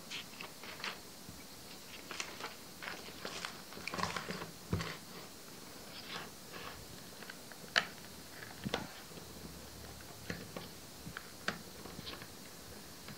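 Clear plastic binding strip of a loose-leaf binder being unclipped ring by ring with the fingers: a run of irregular small plastic clicks and snaps, the sharpest about eight seconds in.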